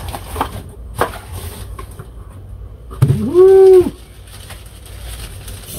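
Cardboard box flaps and plastic packaging being handled as a box is opened, with a few light clicks and rustles. About three seconds in comes a loud "Woo!" whose pitch rises and falls.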